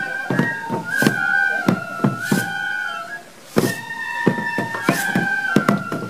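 Bamboo transverse flutes playing a shishimai tune in long held notes. The lion dancers beat the small drums worn at their waists in sharp, irregular strokes. The flutes break off for a moment about three seconds in, then resume.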